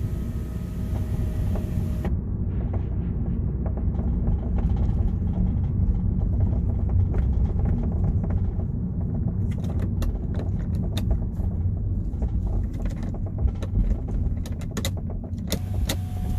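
Hyundai i30 Turbo's panoramic glass roof rattling in short, sharp clicks over the car's steady low road rumble, with the clicks coming thicker in the second half. A steady hiss cuts off about two seconds in. The rattle persists even though the roof has already been replaced once, a fix that held for only about a year.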